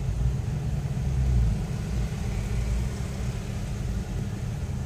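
Low, steady in-cabin rumble of a Lexus RX rolling at low speed, engine and tyre noise heard from inside the car, swelling a little about a second in.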